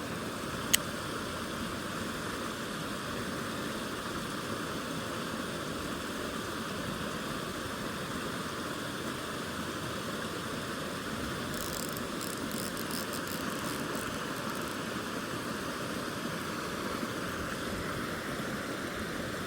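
Mountain stream water rushing steadily. A single sharp click comes just under a second in, and faint high ticking partway through.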